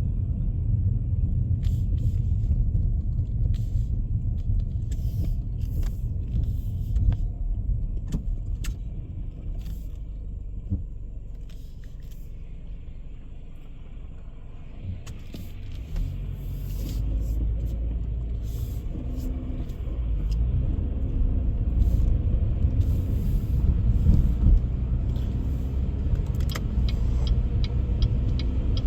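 Car driving on a snowy road, heard from inside: a steady low road and engine rumble that eases off around the middle and builds again, with scattered small clicks and knocks.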